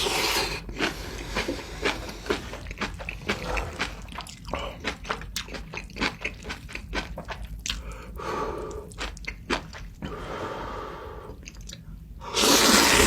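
Close-up crunching and chewing of fresh whole napa cabbage kimchi: rapid, irregular crisp crunches throughout. A few short breathy or slurpy patches break in, and a loud rushing burst comes near the end.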